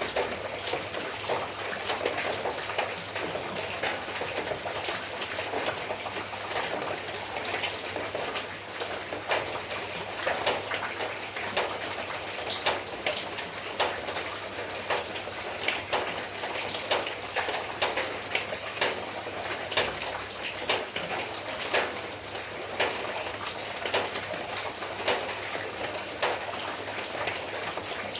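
Steady light rain, with many separate drops and drips landing close by, pattering irregularly over a continuous hiss.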